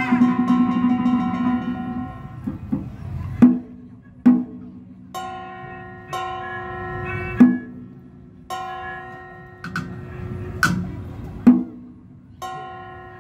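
Vietnamese traditional ritual ensemble (Cao Đài nhạc lễ) playing a slow instrumental. A long wind-instrument note fades out over the first two seconds. Sparse sharp drum and percussion strokes then fall about one to three seconds apart, alternating with held pitched notes.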